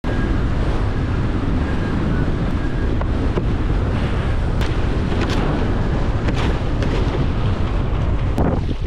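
Wind buffeting the microphone of a camera on a sailing windsurf board, over the rush of water along the hull. Scattered small sharp ticks run through the steady noise.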